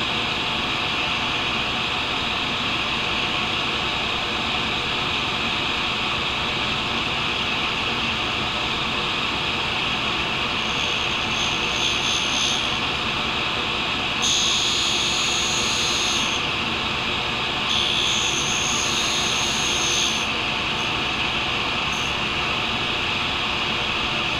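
Tool and cutter grinder running steadily, its wheel spinning with a constant hiss. Three times in the second half, a higher, harsher hiss rises for one to two and a half seconds as the wheel grinds a carbide boring-bar tip.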